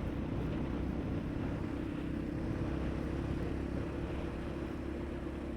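Motorcycle engine running steadily, an even low hum under a steady hiss.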